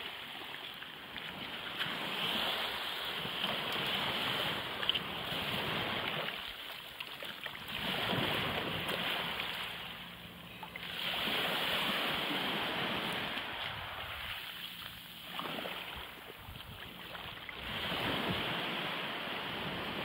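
Small waves washing up over wet sand and pebbles at the water's edge and drawing back, the wash swelling and fading about four times.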